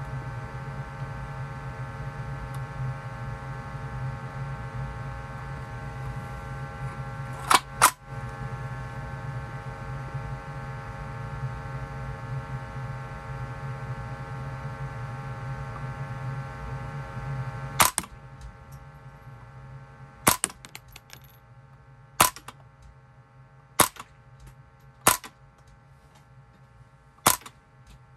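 Silenced Savage A22 semi-automatic .22 LR rifle firing: short sharp cracks, two in quick succession about seven seconds in, then six single shots spaced one to two seconds apart from about eighteen seconds on. A steady hum underlies the first two-thirds and stops at the first of the later shots.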